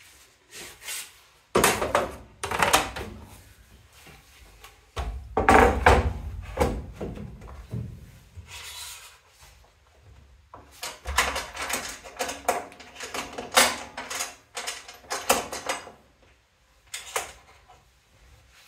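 Plywood sheet being set down and pushed across an aluminium T-slot machine bed, with knocks and thuds of wood on metal, the heaviest a few seconds in. Later comes a run of quicker clacks and knocks as wooden cam stops and a clamp are set against the board.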